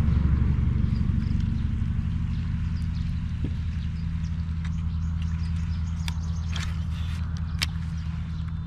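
An engine running steadily at low speed, a low hum with a fast pulsing beat, with a few faint sharp clicks in the second half.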